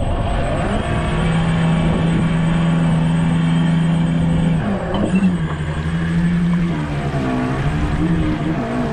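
Radio-controlled model boat's motor running at a steady pitch, dipping briefly about five seconds in and then wavering up and down as the throttle changes.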